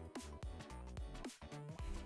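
Quiet background music with a steady beat.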